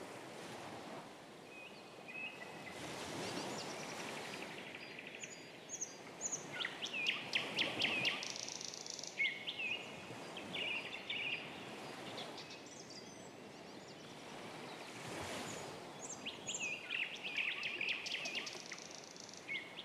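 Birdsong soundscape played over the venue speakers: scattered chirps and quick trills over a soft rushing hiss that swells and fades a few times.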